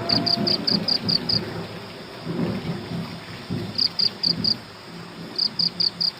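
Crickets chirping in short trains of about five chirps a second, over a steady rain-like hiss and intermittent low rumbling, like a night-time thunderstorm ambience.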